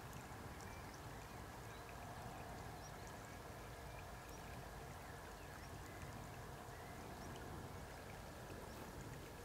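Faint steady outdoor background hiss with scattered faint, high, short chirps.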